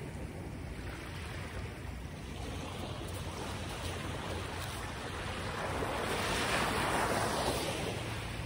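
Steady rush of waves and wind, with a louder wash of water swelling up and fading away about six to seven seconds in.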